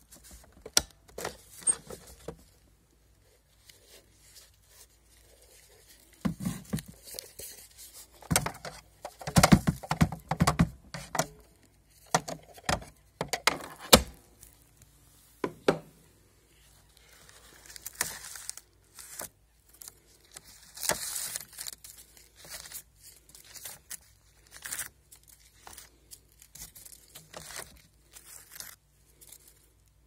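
Handling noise from a robot vacuum's underside: irregular plastic clicks and knocks, with paper rustling and tearing as confetti and paper scraps are pulled out of its rubber brush rollers. The busiest stretch comes about a third of the way in.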